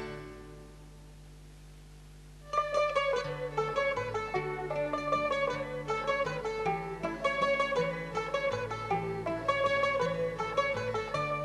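Instrumental background music: a tune's last notes die away, then a new lively tune of quick, sharply struck notes begins about two and a half seconds in.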